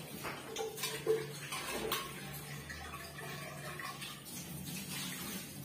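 Washing up at a kitchen sink: running water with dishes clinking, with a few sharp clinks in the first two seconds.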